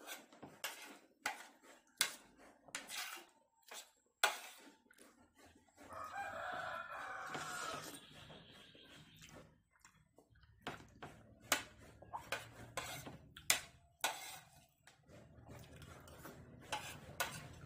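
Close-up eating sounds: a spoon and fork clicking and scraping on a plate, with slurps and chewing smacks. About six seconds in, a rooster crows once for about two seconds.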